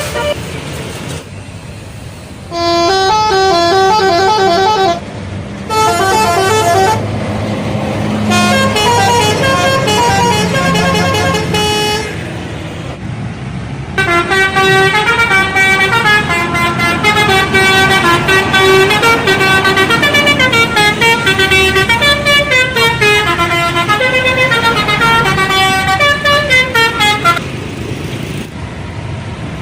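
Bus telolet horns, multi-trumpet air horns, playing quick melodic tooting runs that step up and down in pitch. Several short bursts come in the first half and one long run of about thirteen seconds in the second, over a low rumble.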